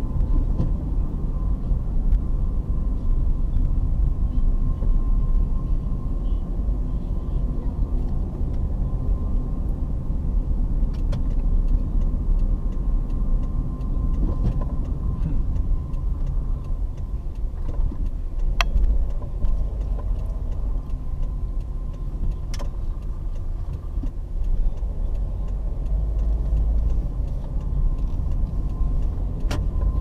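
Car driving along a paved road, heard from inside the cabin: a steady low rumble of engine and tyres, with a thin steady whine and a few sharp clicks.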